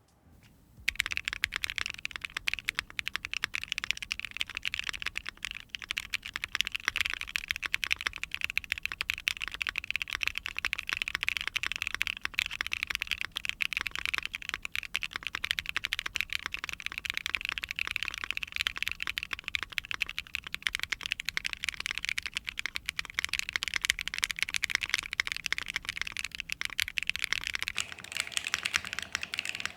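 Continuous fast typing on a Mode Tempo mechanical keyboard with a POM plate, no foam and BSUN linear switches, a dense run of keystroke clacks starting about a second in.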